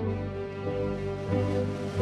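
Orchestral music with bowed strings playing slow, held chords.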